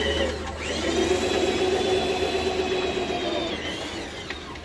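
An electric power tool's motor starts about half a second in, runs at a steady high-pitched whine, and winds down with a falling pitch near the end. A low steady hum runs underneath.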